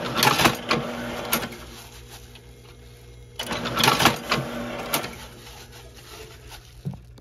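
Gyoza-making machine running, with a steady motor hum and two spells of mechanical clatter about a second and a half long, a few seconds apart, as it works through its forming cycle.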